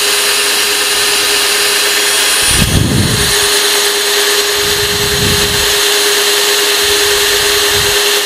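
DeWalt cordless drill spinning a vacuum-brazed diamond core bit as it grinds a hole into marble tile: a steady motor whine under a continuous gritty hiss, with a few brief low rumbles as the bit bites.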